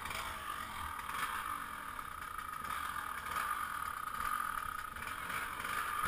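Enduro motorcycle engines running, a steady drone with no revving.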